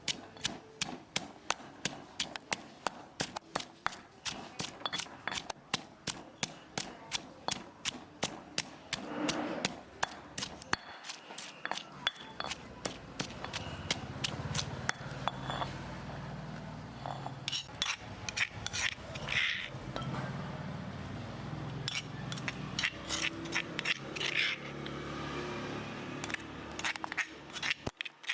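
Kitchen food preparation: a fast, steady run of knocks, about three or four a second, typical of a knife chopping on a cutting board. About twelve seconds in it gives way to clinks and scrapes of utensils and dishes.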